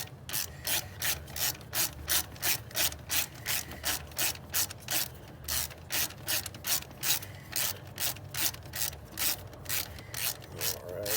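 A 1/2-inch ratchet wrench clicking steadily, about three clicks a second, as it turns out the thermostat housing bolts on a 5.7 Hemi engine.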